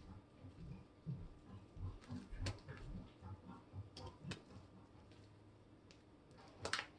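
Homemade glue slime being kneaded and stretched by hand: faint, scattered squishy clicks and soft pats at irregular moments.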